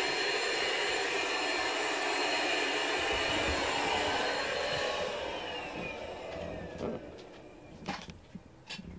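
Steady whooshing hum of an electric appliance's fan motor, switched off about five seconds in and winding down with a falling whine. A few light clicks follow near the end.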